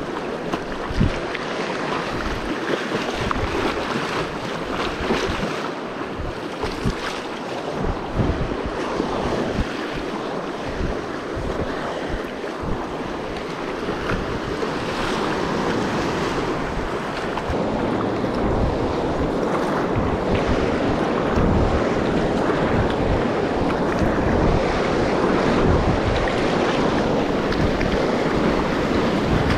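River whitewater rushing, with wind buffeting the microphone in low thumps; the water grows louder over the second half.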